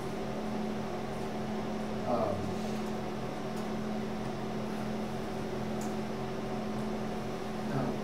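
Steady room hum with several fixed tones, the sound of a fan or ventilation system, with two brief soft sounds about two seconds in and near the end.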